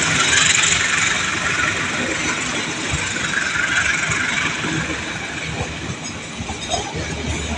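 Train passing over a level crossing: a steady rumble of wheels on rail that eases slightly near the end.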